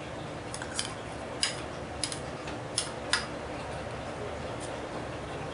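A metal spoon clinking and scraping against a small ceramic bowl as ginger-garlic paste is scraped out of it: about six light clinks in the first three seconds, then one faint one. A low, steady hum runs underneath.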